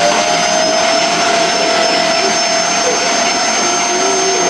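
Vacuum cleaner running steadily on a laminate floor, a constant rushing noise with a steady whine over it.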